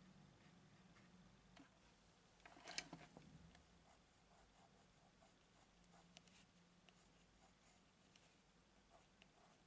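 Faint scratching of a graphite pencil drawing short strokes on textured watercolor paper. About three seconds in, a brief, louder burst of rustling and clicks from handling.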